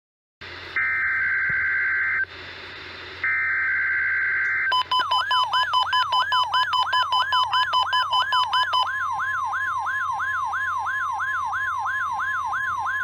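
NOAA Weather Radio alert signal over radio static: two buzzy digital SAME header bursts, then the steady warning alarm tone with a rising warble repeating about three and a half times a second over it, sent as a weekly test of the radio's warning alarm.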